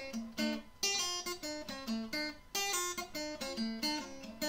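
Intro music on acoustic guitar: single plucked notes and chords picked in a steady pattern, several notes a second, each ringing and dying away.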